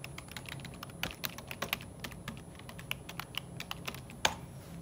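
Typing on a computer keyboard: irregular key clicks, several a second, with one louder clack about four seconds in.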